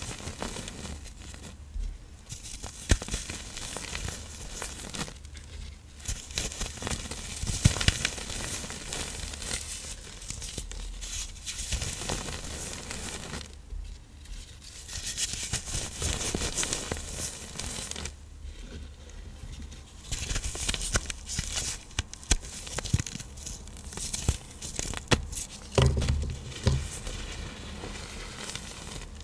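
Reformed blocks of iron oxide powder and cornstarch being crushed by hand, crumbling and crunching in stretches with short pauses. A few dull thuds come near the end.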